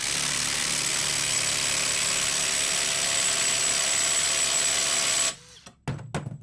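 Hercules HCB81B 20V brushless impact driver hammering continuously on a large bolt through a socket adapter and socket, a dense rattle with a thin high motor whine. It stops abruptly about five seconds in, followed by a few short knocks.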